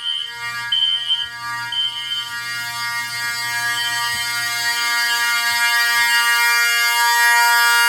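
Several fire alarm horns sounding loudly together: one gives a steady, many-toned horn blare, and a shrill high tone pulses over it about once a second. They all cut off suddenly near the end.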